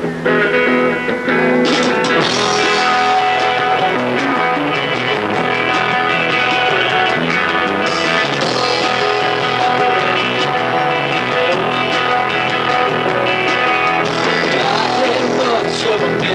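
Live rock band playing: electric guitar notes alone at first, then drums with cymbals and the full band come in about two seconds in and play on steadily.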